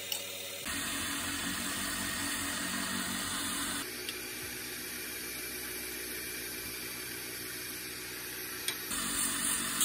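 Wood lathe running with a steady hiss as a turning tool works the spinning tip of an ash-wood wand. The hiss changes character abruptly a few times.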